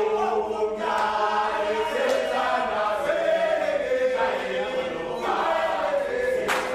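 A football team's players singing together in chorus, a group of men holding long notes that shift in pitch.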